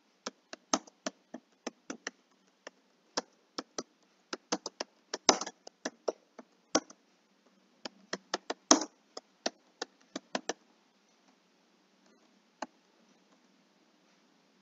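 Computer keyboard keys clicking in quick, irregular runs of typing, which stop about ten and a half seconds in, followed by one more keystroke near the end.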